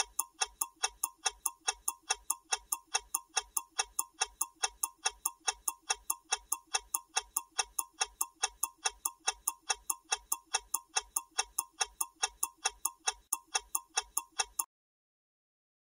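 Clock-style ticking sound effect for a quiz countdown timer, an even, fast tick at about four ticks a second that stops abruptly about a second before the end.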